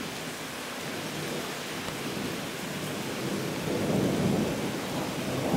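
Steady summer downpour hissing, with a low roll of thunder swelling about three and a half seconds in and fading away near the end.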